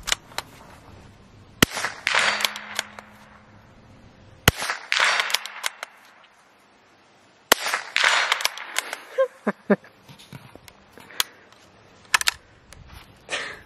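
Four gunshots from a cheap flea-market gun, spaced a second and a half to three seconds apart, each trailing off in a brief echo. A few lighter clicks come near the end.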